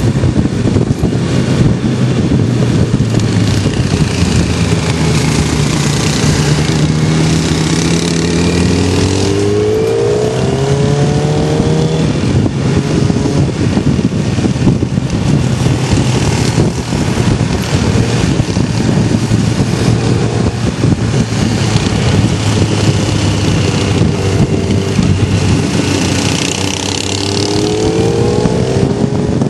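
Motor vehicle engine heard from on board while riding, under a steady rush of wind on the microphone. The engine pitch climbs and shifts through the gears about 4 to 12 seconds in, and again near the end.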